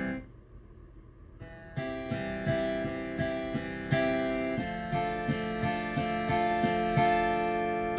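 AODSK S-200 digital piano played with a plucked-string voice. After a short pause, from about two seconds in, it plays a steady run of notes, two to three a second.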